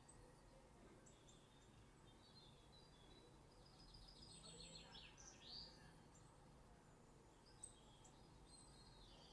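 Faint birdsong from a bird documentary playing on a screen: scattered high chirps, with a quick trill and a downward-sweeping call about halfway through. A single brief click sounds near the end.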